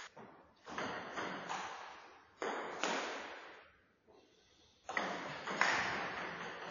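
Table tennis ball clicking off paddles and the table during rallies, each knock echoing in the hall. There is a short lull about three seconds in before play resumes.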